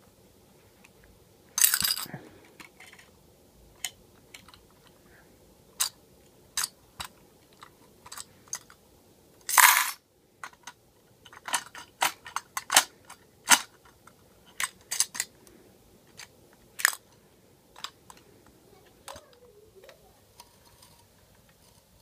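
Irregular clicks and clacks of a die-cast toy front-loader garbage truck being worked by hand, its front lift arms and plastic dumpster knocking, with two louder knocks, one near the start and one about halfway through.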